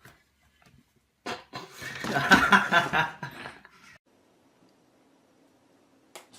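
A person laughing, a burst of quick chuckles starting about a second in and lasting a couple of seconds.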